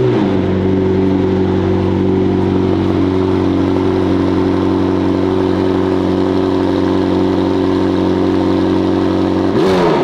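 McLaren 765LT's twin-turbo V8, fitted with IPE downpipes, starting up: a rising flare right at the start settles into a loud, steady high idle. Near the end the pitch briefly dips and comes back up.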